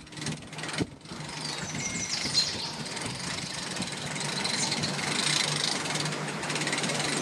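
Pickup truck's engine running steadily at low speed as it tows a pontoon boat on its trailer up a launch ramp. Birds chirp in the background.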